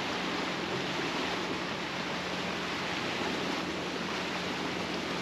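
Water rushing and hissing along the hull and wake of a sailboat under way, a steady noise with a faint low hum beneath it.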